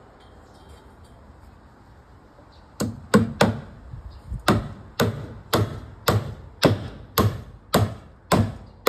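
Hammer blows: about a dozen sharp strikes, roughly two a second, starting about three seconds in, nailing the timber beams of concrete formwork shoring.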